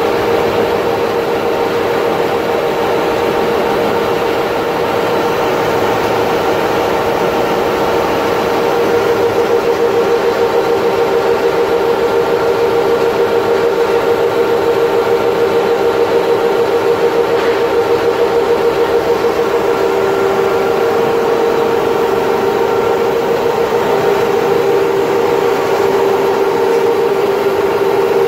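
Snack-food extruders and their rope cutting and haul-off units running in production: a steady machine hum and whine with a fast, regular pulse in it.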